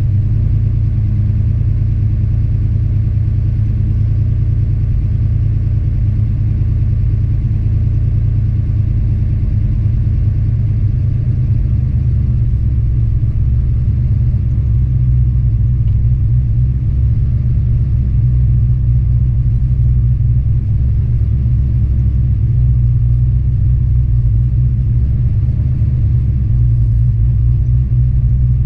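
1989 Mustang GT's 302 small-block Ford V8, with an aftermarket Summit F303+ camshaft, idling steadily after a pushrod swap, its idle speed just set with the throttle-body stop screw.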